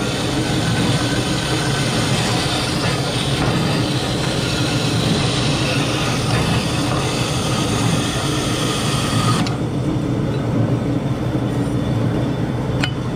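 1971 DoAll 16-inch vertical metal-cutting bandsaw running with its blade cutting through a hand-fed metal bar, a steady hiss of blade in metal over the machine's running noise. About nine and a half seconds in the cutting hiss stops suddenly as the blade breaks through, leaving the saw running, and a single click comes near the end.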